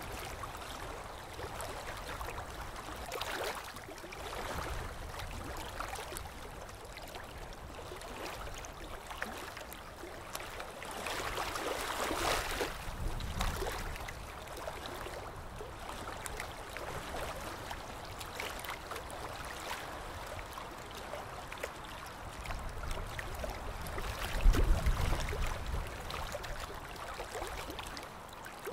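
Water sloshing and gurgling with a steady wash of noise, swelling now and then, and a brief louder low rumble about 24 seconds in.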